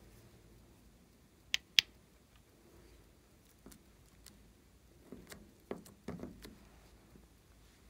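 Plastic beads clicking and tapping as they are handled: two sharp clicks about a second and a half in, then a cluster of clicks and soft knocks near the end.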